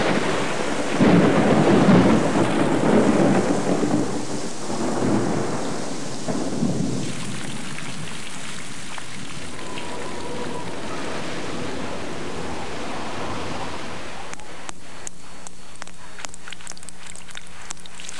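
Thunder rolling in several loud rumbles over the first seven seconds, fading into steady rain, with a few sharp drips near the end.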